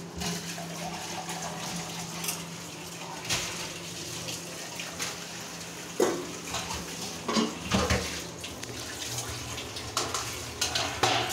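Steel kitchen utensils clattering and knocking against each other several times at a sink, over the steady rush of water from a tap.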